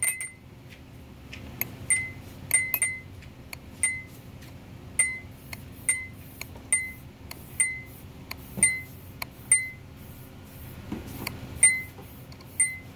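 Nissan Skyline R32 GT-R instrument cluster's speed warning chime, the ding it gives above about 100 km/h, dinging over and over while a test lead is held on the cluster's terminal. Short, bright dings about one or two a second, unevenly spaced, each dying away quickly.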